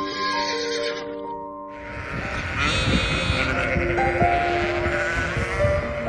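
Sheep bleating over background music of slow held notes; the bleating and a busy field ambience come in about two seconds in.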